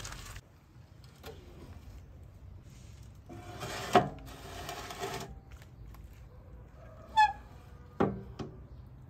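Metal baking tray slid into the oven of a cast-iron wood-burning stove, scraping along for about two seconds with a sharp knock in the middle as it goes home. Near the end a short high squeak, then the iron oven door's latch clicks shut, twice.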